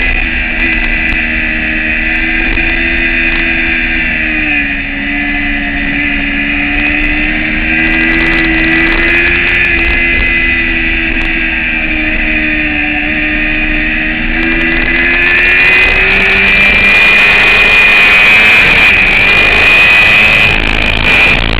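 Motorcycle engine heard from an onboard camera while lapping a race track at speed. Its pitch dips about four seconds in, then climbs slowly. After about sixteen seconds a louder rushing noise covers it.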